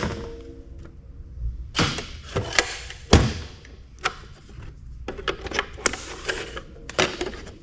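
Plastic housing parts of a microfiche reader being pried off and handled: a series of knocks and clicks, the loudest a thump about three seconds in.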